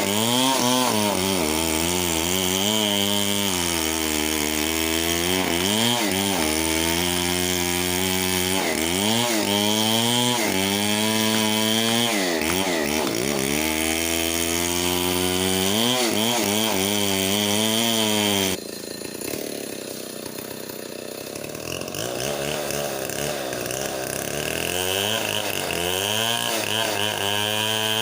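Chainsaw engine running at high revs, its pitch dipping and recovering again and again as it bogs under load cutting through a log. About two-thirds of the way through it drops abruptly to a lower, quieter speed, then revs back up near the end.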